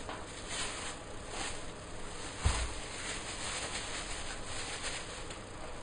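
Cling film rustling as it is peeled off a ball of chilled pastry dough, with a few faint crinkles and one soft thump about two and a half seconds in.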